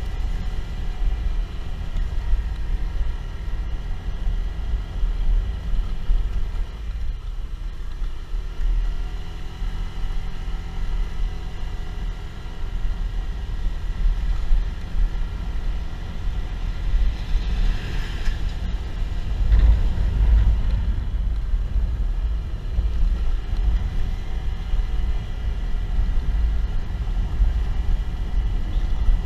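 Motorcycle engine running on the move, its pitch rising and falling with the throttle, over a heavy low rumble of wind on the microphone.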